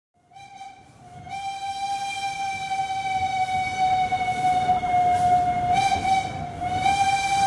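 Train horn sounding one long, steady blast that swells in over the first second or so and wavers briefly near the end, over the low rumble of a moving train.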